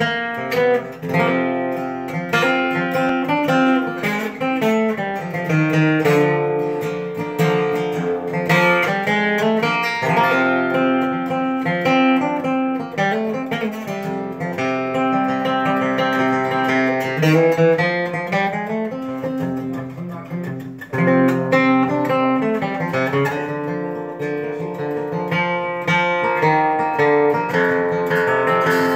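A 1938 herringbone Martin D-28 dreadnought acoustic guitar, with a Brazilian rosewood body and spruce top, played solo: a steady run of picked notes and chords, with a short break about two-thirds of the way through.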